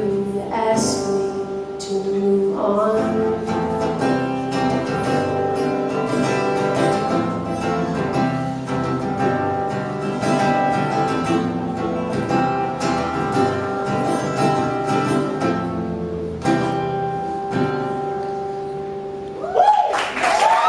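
A live band plays the closing instrumental bars of a ballad, with guitar prominent, settling onto a held final note. Near the end the audience breaks into cheering and whoops.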